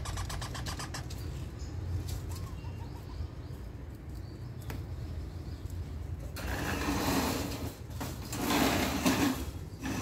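Parakeets at a wire cage: a quick rattle of clicks at the start, then two noisy, rasping bursts of about a second each near the end.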